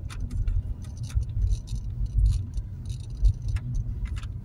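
A car driving slowly, heard from inside: a low, uneven rumble with frequent light rattling and jingling clicks.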